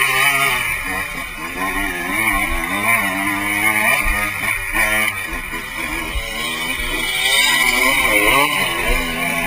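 Dirt bike engine heard from on board, its pitch rising and falling over and over as the rider works the throttle, with the revs climbing sharply near the end.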